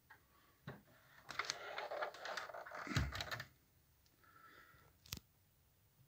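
Handling noise from a plastic stereo head unit being turned around on a table: a click from the front panel, a stretch of clattering and scraping, a low thump about three seconds in, a brief faint tone about four seconds in, and a sharp click near the end.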